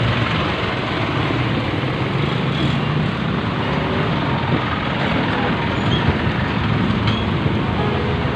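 Steady street traffic noise: motor vehicles running and passing on the road alongside.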